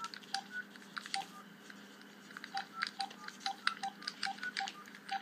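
Telephone keypad tones as a number is dialed: about ten short two-tone beeps with light tapping clicks. A few beeps are spaced out, then a quicker run of them comes in the second half.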